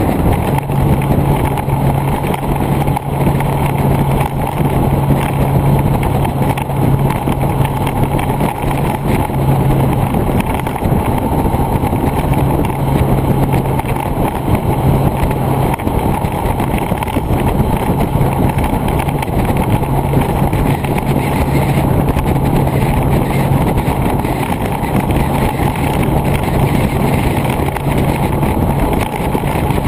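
Vehicle cruising along a road: a steady low engine drone under loud, continuous wind noise on the microphone.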